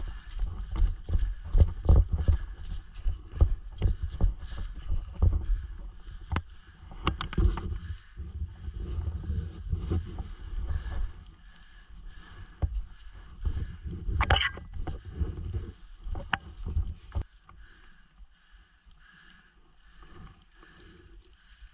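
Handling noise from a body-worn action camera as its wearer moves over ground thick with dry leaves: dense, uneven low thumps and knocks from steps and gear jostling. It grows quieter about halfway through, and a few sharp clicks come near the end before it settles almost to quiet.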